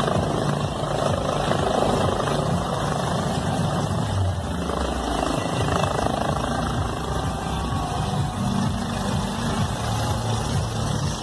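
Helicopter landing on grass: steady rotor and turbine noise with a low pulsing beat from the blades as it settles onto its skids, the rotors still turning after touchdown.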